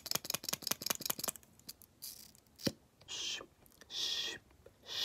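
Fast plastic clicking and tapping of mascara tubes and wands handled close to the microphone. Then a single click and a few short, hissy swishes as a mascara wand is brushed over the camera.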